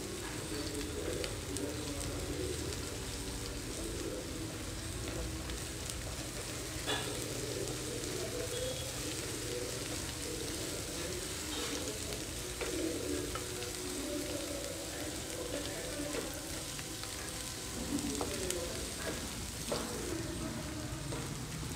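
Onions, green chillies and ginger-garlic paste sizzling steadily in hot oil in a nonstick kadai, fried until the paste loses its raw smell. A spatula stirs them now and then, with a few scraping clicks against the pan.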